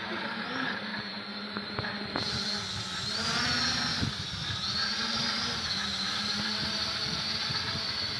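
Small multirotor drone's electric motors and propellers whining in flight, the pitch wavering up and down as the motors adjust. It grows louder about three seconds in, with a few light clicks before that.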